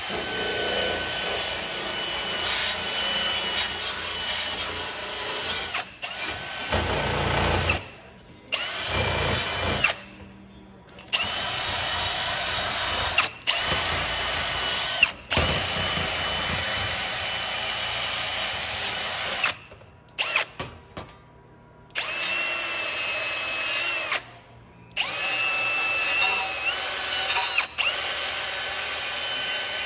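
Cordless drill spinning a wire wheel brush against a sheet-metal engine part to strip and polish it: a steady high motor whine with scratchy wire-on-metal noise. It stops and spins back up several times.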